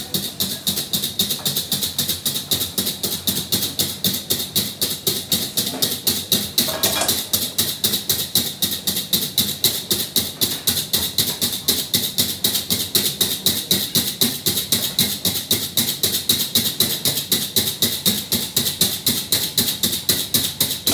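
Omelette eggs being beaten by hand with a whisk in a bowl: a fast, steady rhythm of sharp strokes, about five a second.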